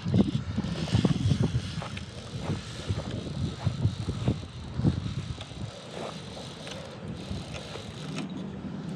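Wind buffeting the microphone in irregular low gusts, busier in the first half and easing off after about five seconds, over a faint wash of water.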